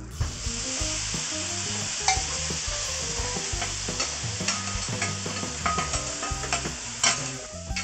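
Yakisoba noodles and pork offal sizzling steadily on a flat iron griddle, with a metal spatula and ladle scraping and clacking against the plate. The sharpest metal clicks come about two seconds in and again near the end.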